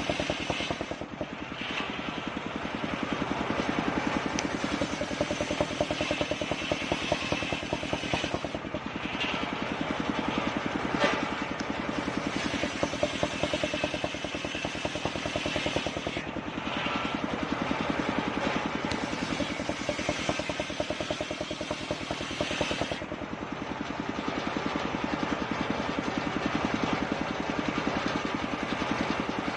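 Circular saw blade sawing kapok wood into boards, the machine running steadily with a fast even beat. The cutting noise lightens several times, most over the last few seconds.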